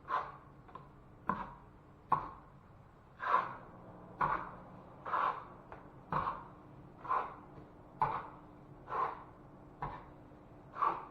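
A hand tool worked against drywall in repeated short strokes, about one a second, each starting sharply and fading quickly.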